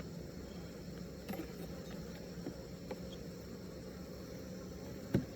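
Honeybees buzzing as a steady hum from an opened, crowded hive, with a few light ticks and one sharp knock near the end.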